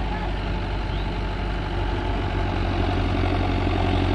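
Diesel tractor engines running under strain while pulling a tractor stuck in deep mud; the engine note grows louder and fuller about two seconds in.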